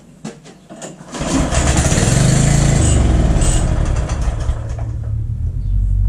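The rototiller's small single-cylinder engine, pull-started after a shot of ether, catches about a second in and runs for a few seconds, dropping off in level near the end. Running only on the ether points to a fuel-delivery fault rather than ignition, which the owner puts down to the carburetor.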